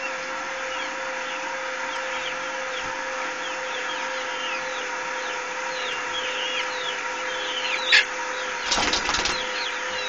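Motor of an 18-volt drill, run slowly on 5 volts DC through a worm gear, humming steadily as it lowers an automatic chicken coop door. Birds chirp over it, and there is a sharp click about eight seconds in, followed by a brief rattle.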